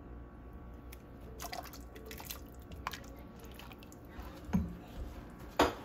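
Cooking sounds at a pot of soup: soft wet stirring with scattered clicks and knocks, the sharpest knock near the end.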